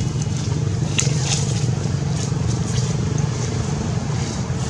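Steady low rumble of a motor vehicle engine running nearby, with a few faint clicks about a second in.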